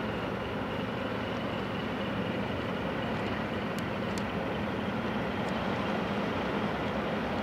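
Steady low mechanical rumble with a faint hum, and a few faint clicks about four and five seconds in.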